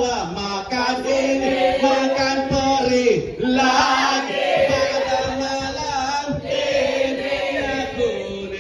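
A man chanting into a microphone, holding long drawn-out notes to lead a group toast, with other voices joining in.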